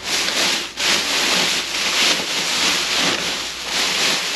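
Thin plastic garbage bags rustling and crinkling loudly as gloved hands dig through and pull them apart, in continuous surges with a brief lull just under a second in.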